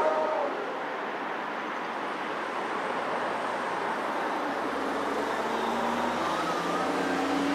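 Steady road traffic noise, an even hiss with no single vehicle passing distinctly, with faint tones coming in during the second half.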